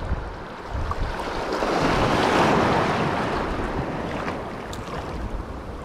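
A sea wave surging in, swelling to a peak about two seconds in and then washing away, with wind buffeting the microphone.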